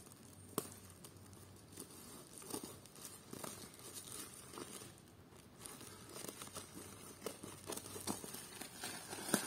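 Scissors snipping through a plastic courier bag, with the plastic crinkling and tearing as it is cut and pulled open; faint, with scattered sharp clicks.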